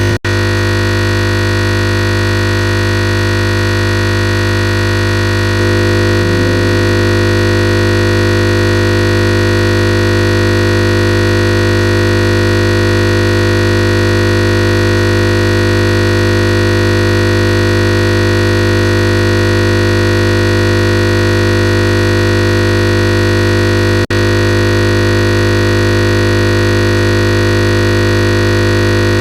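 Loud, unchanging electronic buzz of many fixed tones: a tiny fragment of audio stuck looping, the sound of a computer crashing to a blue screen. It cuts out for an instant near the start and again about 24 seconds in.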